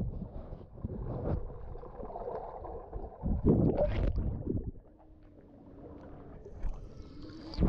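Swimming-pool water sloshing and splashing around the camera, in irregular surges, dropping much quieter about five seconds in.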